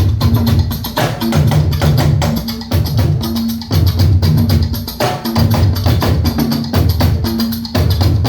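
Instrumental band music with no singing: a repeating bass line under sharp wood-block-like percussion, keeping a steady beat.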